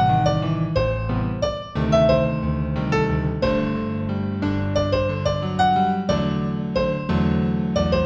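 Solo piano playing a piece in G major at a moderate tempo of about 90 beats a minute: a steady run of single notes over held low chords.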